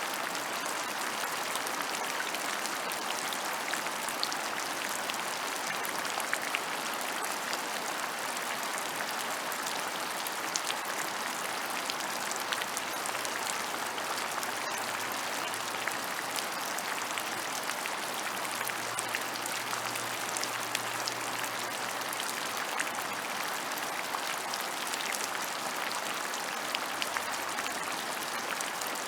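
Steady rain falling on open ground, a dense even hiss with many small drop ticks scattered through it.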